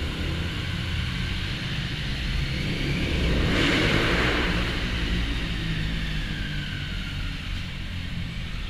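Motorcycle engine running at low revs as the bike rolls slowly inside an underground car park. A short swell of hiss rises and fades about four seconds in.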